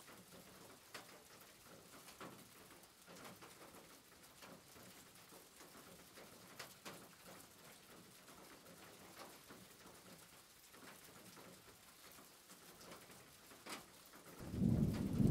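Faint scattered taps and clicks of a kitchen knife against a wooden cutting board as it trims crusts off toast bread. Near the end a sudden loud low rumble starts.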